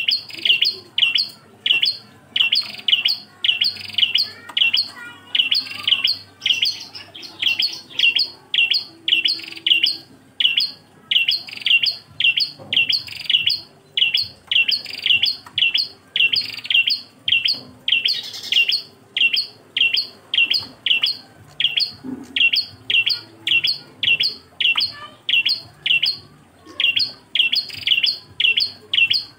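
A prenjak klawu singing a fast, steady string of short, high chirps, about two a second, repeated without a break.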